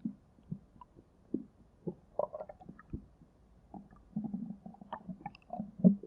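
Stomach growling: a string of short, low gurgles and squelches, with a longer rumble about four seconds in and another just before the end.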